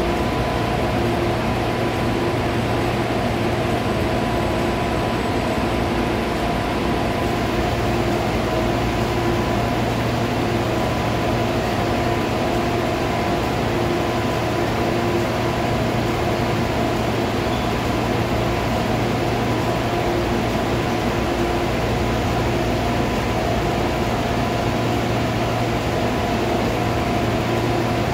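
A CAF-built metro train standing at the platform with its doors open, its air-conditioning and auxiliary equipment running with a steady hum and whir. Several steady tones run under the noise, with no change.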